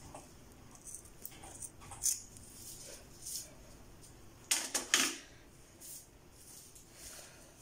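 Soft rustling and scraping as a curly wig is combed and handled on a foam wig head. A little past halfway comes a louder cluster of three or four quick sharp sounds.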